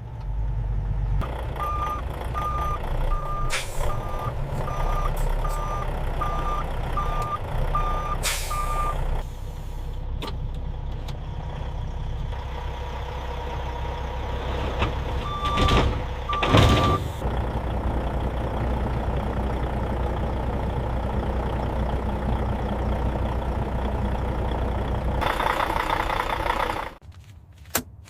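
Semi-truck's diesel engine running while it reverses, with its backup alarm beeping steadily, a little under twice a second. Two more beeps follow mid-way with short bursts of air hiss. A longer air hiss comes near the end, and the engine then shuts off.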